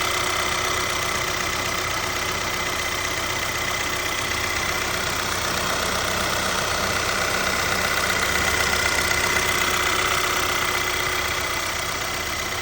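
2.0T Audi/VW turbocharged four-cylinder engine idling steadily.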